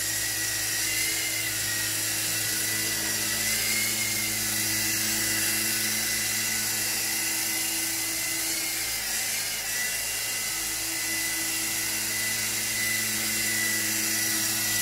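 Small Silverlit RC toy helicopter in flight, its electric motor and rotor giving a steady high-pitched whine that wavers slightly in pitch.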